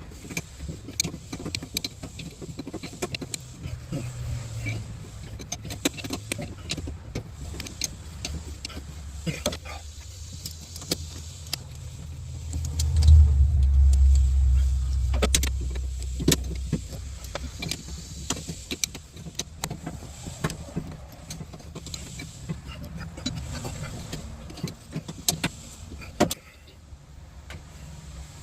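AGT QK18 mini excavator's diesel engine running, with scattered clicks and knocks as the controls are worked. About 13 seconds in, the engine note swells louder and deeper for about four seconds, then settles back.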